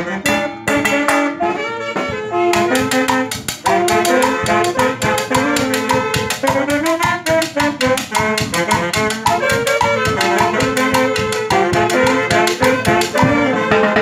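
A small street band playing together: a section of saxophones on the melody over a bass drum, snare and cymbal keeping a quick, even beat, a festive parrandita tune.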